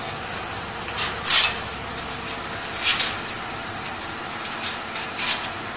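Several short hisses of compressed air from the pneumatic valves and cylinders of a model three-way tipper trailer, the loudest a little over a second in, over a steady background noise.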